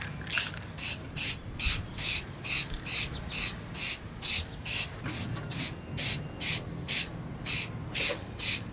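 Aerosol spray paint can hissing in short, evenly spaced bursts, about two a second.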